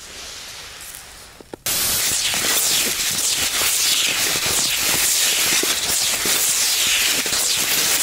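Loud, steady rushing hiss of skis gliding fast on a snow track, with fine scraping crackle in it. It starts abruptly about a second and a half in, after a quieter stretch of faint snow hiss.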